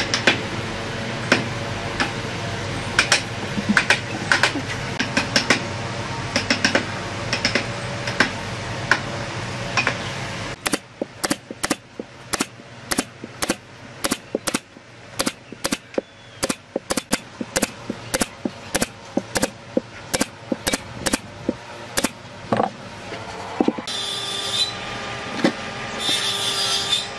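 Pneumatic brad nailer driving nails into wooden staves, a long run of sharp shots at about two to three a second starting roughly ten seconds in, after a stretch of steady mechanical noise with scattered knocks. Two short bursts of high hiss come near the end.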